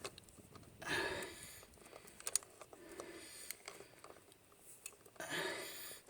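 Quiet clicks and knocks of a 3-jaw filter wrench on an extension working a stuck hydraulic oil filter loose, with two short rushes of noise, about a second in and near the end.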